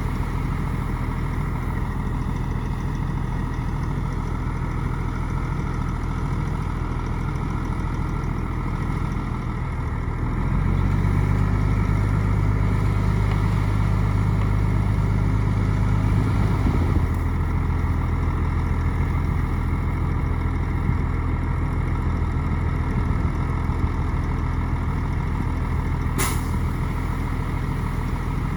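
Shantui bulldozer's diesel engine running steadily. About ten seconds in its note changes and grows louder, then shifts again a few seconds later. There is one sharp click or clank near the end.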